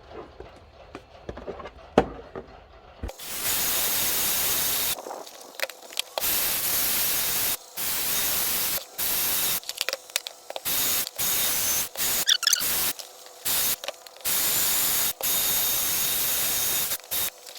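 Hand drill with a scrubbing-brush attachment running in repeated bursts of a second or two, the brush scrubbing soapy seatbelt webbing. It starts about three seconds in, after a single click.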